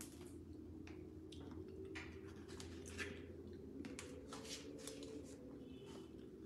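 Soft scraping and small clicks of a metal spoon scooping soft avocado flesh out of its shell, with a few quiet mouth sounds of eating, over a steady low hum.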